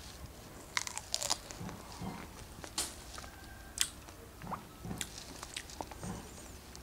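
A person chewing a fresh strawberry, with irregular short clicks and smacks of the mouth.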